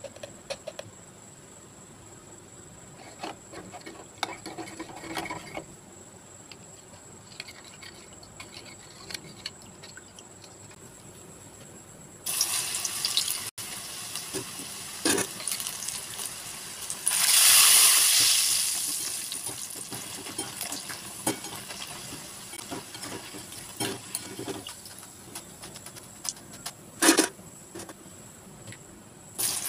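Raw banana slices deep-frying in hot oil in a kadai: a dense sizzling hiss that starts suddenly about twelve seconds in, swells to a loud spitting peak a few seconds later, then settles. Before it, only faint scattered clicks.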